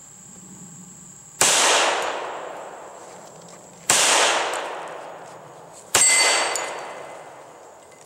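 Three shots from a Hi-Point .45 ACP pistol, about two and a half and then two seconds apart, each echoing away over a second or more. After the third shot a steel target plate rings briefly.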